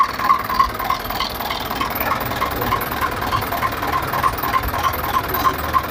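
Truck diesel engine idling, with a steady low rumble and an even clatter of about four to five beats a second.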